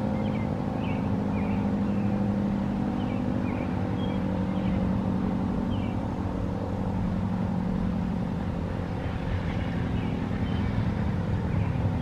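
Federal Signal SD-10 outdoor warning siren sounding a steady tone, the alert signal, with birds chirping over it.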